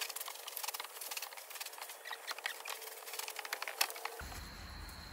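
Irregular crackling and rustling of footsteps on dry straw. About four seconds in, a steady low hum comes in.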